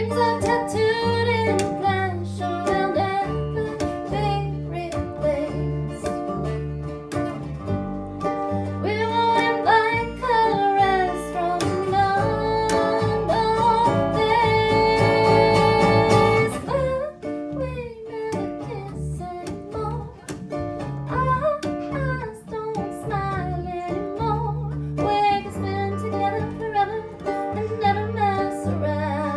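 Live acoustic band: a woman singing over a strummed ukulele, acoustic guitar and plucked upright double bass. About halfway through she holds one long note before the song moves on.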